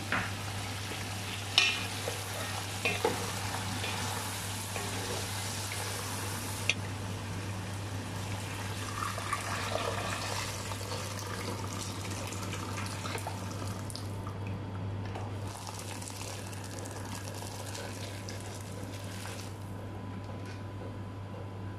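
Water poured into a cooking pot over whole chickens, and the pot of chicken boiling on a gas burner. A few sharp knocks of cookware come in the first few seconds, over a steady low hum.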